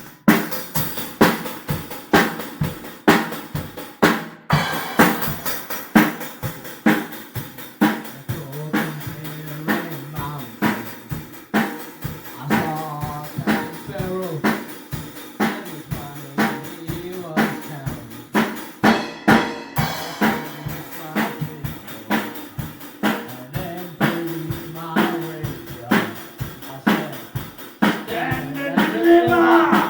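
Drum kit playing a steady beat, kick and snare hits about two a second, with held low pitched notes, like a bass line, running under it from about a third of the way in.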